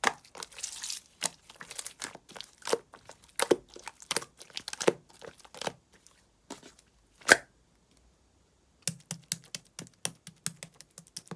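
Slime being squeezed and pressed by hand, giving wet crackling pops and clicks every half second or so. It goes nearly silent for a few seconds past the middle, then a quicker run of small clicks begins near the end.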